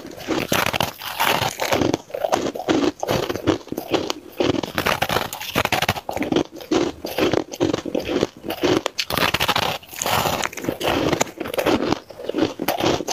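Powdery, snow-like frozen ice being bitten and chewed close to the microphone: rapid, irregular crunches one after another.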